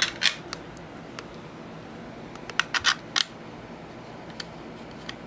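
Sharp plastic clicks from a GoPro camera's waterproof housing and plastic mount parts being handled and fitted together: two near the start, then a quick cluster of four about two and a half to three seconds in.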